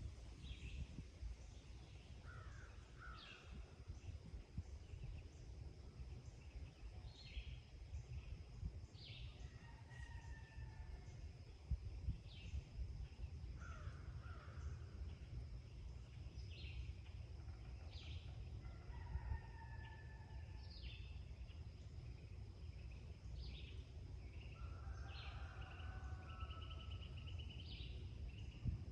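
Birds calling and singing at dawn: short high chirps and call notes every second or so, and a few lower warbled phrases. Underneath is a steady faint high whine and a low rumble.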